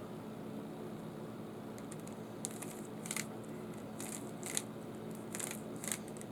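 Short plastic clicks and rasps of a Rubik's Cube's layers being turned, about six quick bursts in the second half, over a steady low hum.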